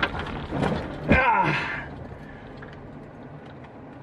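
Car crash aftermath as a car slides off a snowy road: scraping and clatter, with a loud groan falling in pitch about a second in, then the noise dies down.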